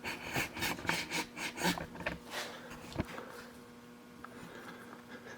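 Milling machine being adjusted by hand as the boring head is lowered: irregular scraping and clicking of metal parts, a single sharp knock about three seconds in, then a faint steady hum.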